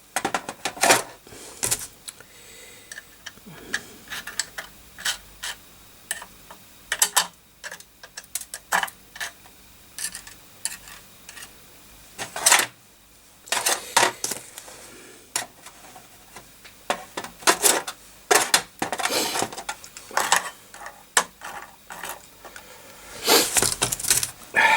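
Irregular sharp metallic clicks, taps and clatter of small tools and parts being handled on a workbench, some in quick clusters.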